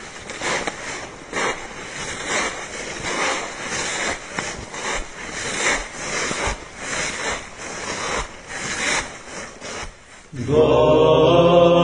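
A steady noisy rustle with soft, irregular pulses two or three times a second, as of water or wind. Near the end it stops, and a man's chanting begins.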